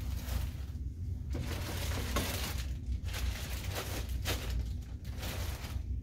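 Clear plastic bags crinkling and rustling in irregular bursts as bagged, coiled catheters are handled, over a steady low hum.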